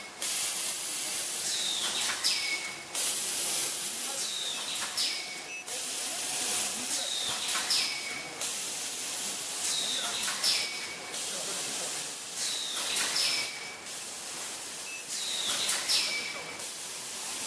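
Automatic bag-making machine running through its cycle: a steady hiss that breaks off and starts again about every three seconds, with a short falling whistle at each break.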